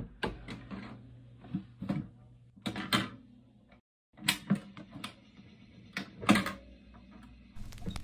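Plastic LEGO pieces clicking and clacking as a brick-built record player is handled: its clear dust cover is moved and small switches on the deck are pressed. The clicks come singly, with short pauses between them.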